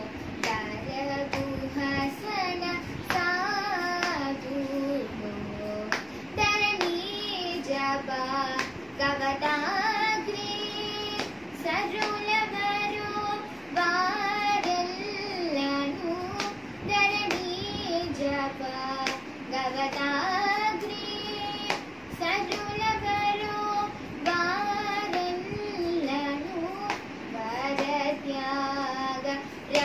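A girl singing a Carnatic devotional song, her voice gliding and ornamenting between notes. She keeps the beat with light hand taps on her lap.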